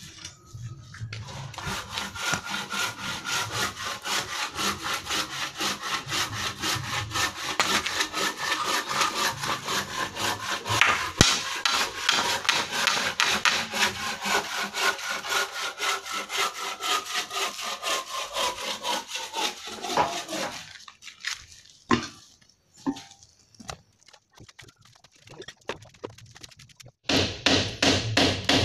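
Hand saw cutting through wooden door-frame timber in steady back-and-forth strokes, about three a second. The sawing stops about twenty seconds in, leaving a few scattered knocks, and starts again shortly before the end.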